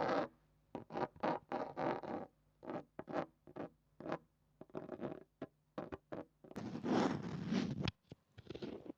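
Fingers scratching and rubbing on a small microphone: a quick run of short crackling scratches, then a longer rubbing stretch near the end.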